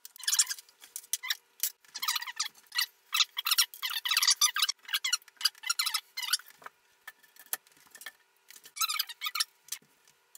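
Rapid bursts of high squeaking with small clicks from hands-on assembly of a wooden dresser frame, busiest in the first half and again briefly near the end.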